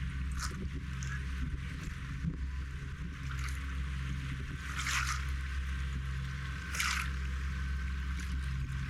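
Small sea waves lapping and splashing at the shore in separate washes every second or two, over a steady low rumble.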